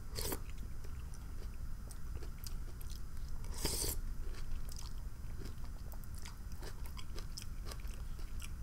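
Close-miked chewing and wet mouth sounds of a person eating Zuppa Toscana soup with potato slices, with many small clicks. There are two louder noisy bursts, one at the start and one about three and a half seconds in.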